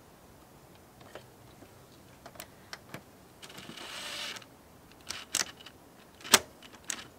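A DeWalt cordless impact driver runs for about a second, spinning a bolt into a plastic engine cover. Around it are light clicks and knocks of bolts, plastic and the tool, with one sharp click near the end the loudest.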